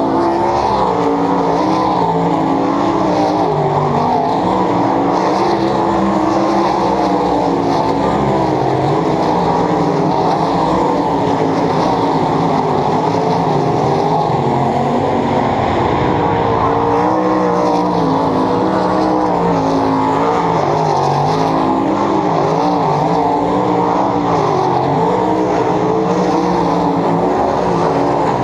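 A field of 410 sprint cars racing on a dirt oval: several methanol-burning V8 engines running together in one loud, unbroken wail, their pitches wavering up and down as the cars lap the track.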